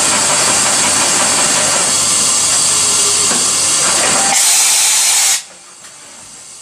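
Kitamura HX 400iF horizontal machining center running with a loud, steady hiss. The hiss turns harsher for about a second and then cuts off suddenly about five seconds in.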